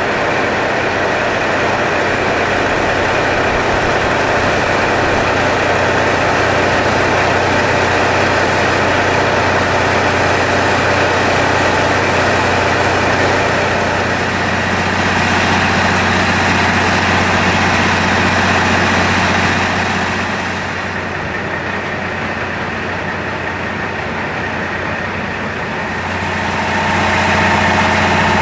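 Diesel engines of KiHa 183 series railcars running with a steady low drone, under a steady hiss of heavy rain for most of the stretch. The hiss thins out a few seconds before the end and the engine drone rises again, an idling engine close by.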